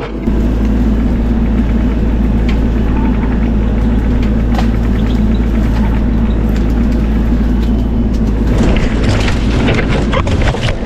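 Bobcat E42 mini excavator's diesel engine running steadily under load. From about eight seconds in come many sharp cracks and snaps of wood and branches breaking as the big tree is shoved along.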